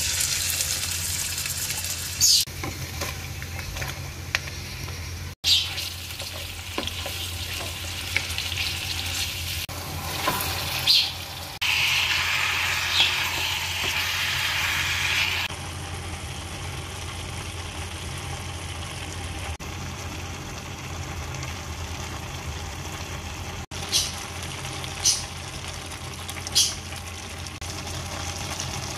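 Oil sizzling in a wok as chopped garlic and ginger, then minced meat with shiitake mushrooms, are stir-fried, with a wooden spatula stirring through the food. The sizzle is louder for a few seconds near the middle, and a few sharp clicks stand out, with a steady low hum underneath.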